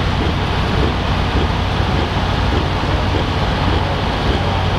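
Massey Ferguson 1155 tractor's Perkins V8 diesel running steadily, the tractor stopped after its pull.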